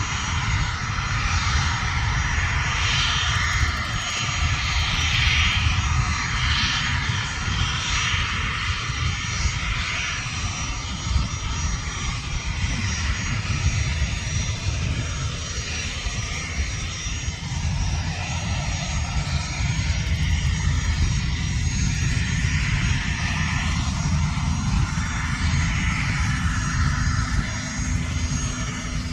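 Gulfstream G280 taxiing on its two Honeywell AS907 turbofans at low power: a steady jet whine and rush over a heavy low rumble, swelling and easing a little as the jet rolls past.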